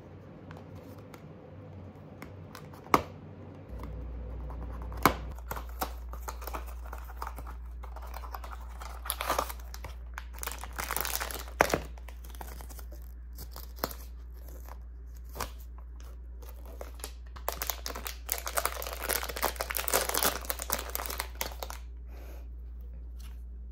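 A Smiski blind box being opened: a couple of sharp clicks from the cardboard box a few seconds in, then its foil wrapper torn open and crinkled in two longer bursts of rustling.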